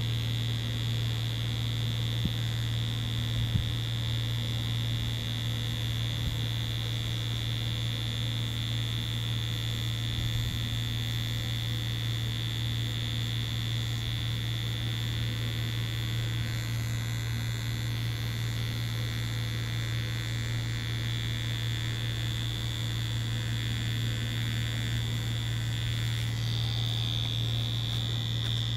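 Tattoo machine buzzing steadily as it runs, a constant low hum with a thin high whine over it, and two faint knocks a few seconds in.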